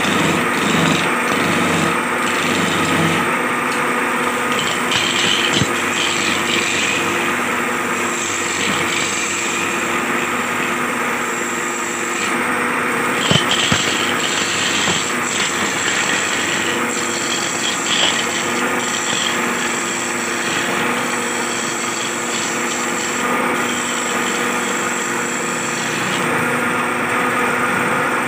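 Belt-driven wood lathe running with a steady hum while a hand chisel scrapes and cuts the spinning wooden cot leg. A sharp knock about halfway through and another a few seconds later.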